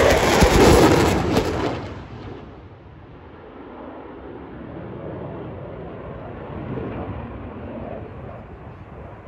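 Eurofighter Typhoon's twin EJ200 turbofans with afterburner lit: loud, crackling jet noise for about the first two seconds as it passes, then dropping to a steady, fainter rumble as the jet draws away.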